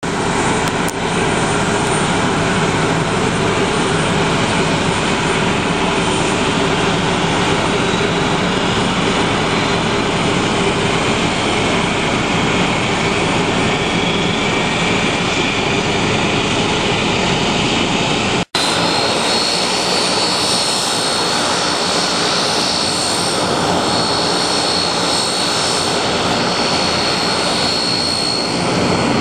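Antonov An-12's Ivchenko AI-20 turboprop engines running on the ground, a loud steady din of propellers and turbines. After a sudden break about two-thirds of the way in, a steady high turbine whine stands out above the din.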